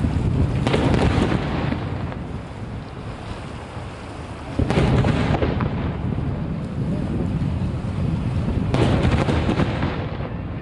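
Aerial firework shells bursting: three heavy booms about four seconds apart, each trailing off in a long, deep rumble.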